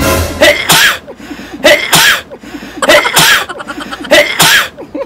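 A man sneezing four times in a row, evenly spaced about a second apart.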